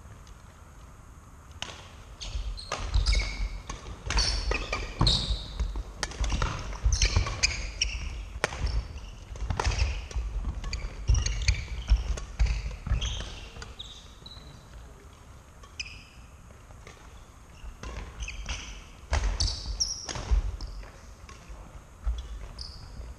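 Badminton rally on a wooden sports-hall floor: sharp racket strikes on the shuttlecock, shoes squeaking and feet thudding on the court. A long spell of play starts about two seconds in and eases off after about fourteen seconds, and a short burst of play comes near the end.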